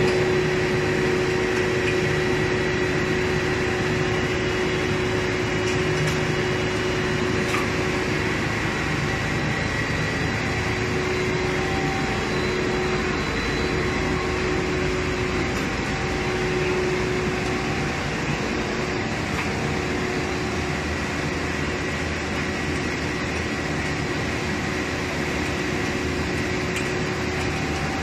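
PP/PE plastic board extrusion line running: a steady mechanical drone with a constant whine held through it.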